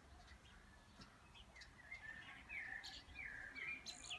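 Faint bird chirping: a run of short chirps, busier in the second half.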